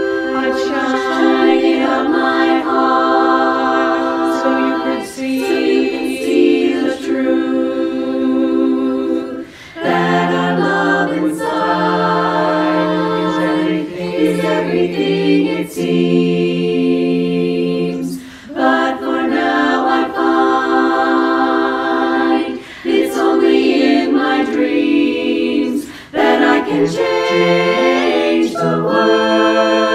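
Women's chorus singing a cappella in close harmony: held chords, broken by short pauses between phrases.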